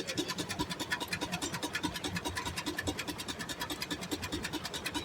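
Steam-powered sawmill running, with a fast, even beat of about six pulses a second.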